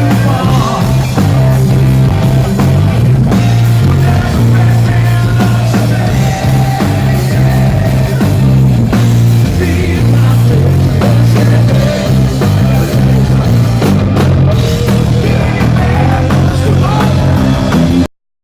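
Live rock band playing loud, with drums, guitar and bass, heard as an audience recording; the sound cuts off abruptly near the end.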